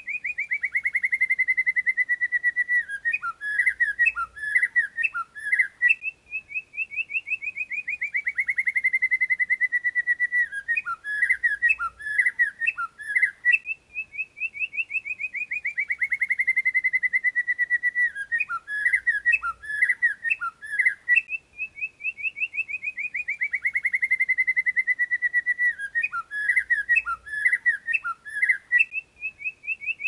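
Looped birdsong training track (masteran): a fast quavering trill that slides down into a held whistle, then a burst of quick chirps, the same phrase repeating about every seven and a half seconds.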